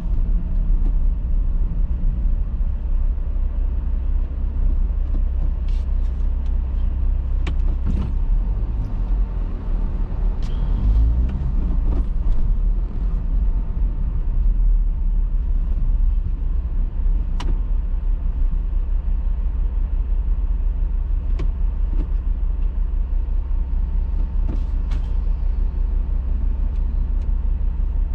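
Car driving along a road: a steady low rumble of engine and tyres, with a few short sharp clicks scattered through it.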